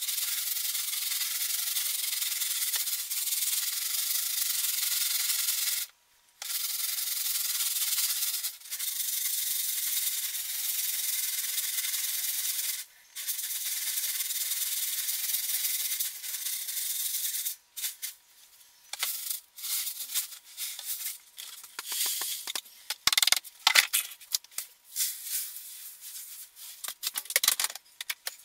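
Cat litter and plastic litter pans being handled. A steady gritty hiss of litter runs in long stretches, broken by a few short breaks; over the last ten seconds it turns into irregular rattles and scrapes.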